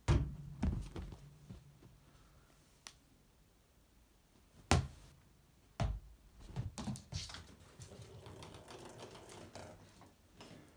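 Sharp knocks and clicks of small hard plastic toy balls hitting and bouncing on a laminate floor as a cat chases them: single hits at the start and near the middle, then a quick clattering run of clicks.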